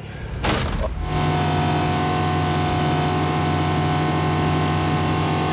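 Yamaha XTO Offshore V8 outboard running steadily at speed, with the rush of water from the wake. A short noise comes first, and the steady engine drone starts about a second in.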